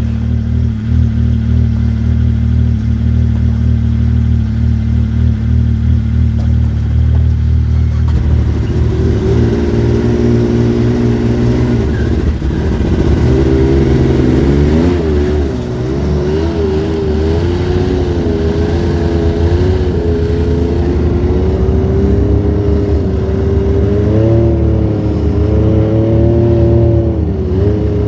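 Snowmobile engine idling steadily, then about eight seconds in revving up and running at changing speed, its pitch rising and falling with the throttle.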